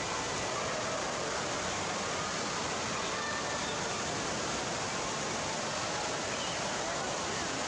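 Indoor water park ambience: a steady wash of running and splashing water from fountains and water-play structures, with the faint hubbub of a crowd of people underneath.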